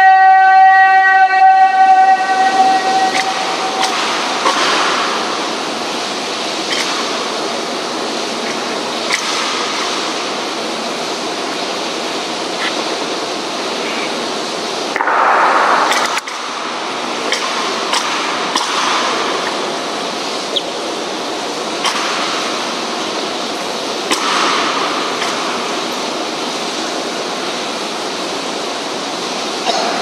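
Steady rain hiss with scattered sharp taps and clicks, and a louder rush of noise about halfway through. It opens with a long drawn-out shouted drill command held on one pitch for about two seconds.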